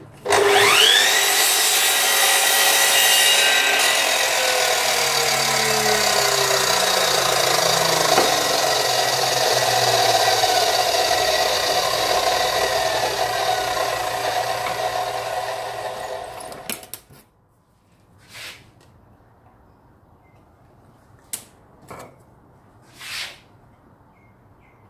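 Sliding compound mitre saw motor starting with a whine that rises to speed in about a second. The whine then falls away over a few seconds while a steady running noise carries on. That noise cuts off suddenly about seventeen seconds in, and a few short light knocks follow.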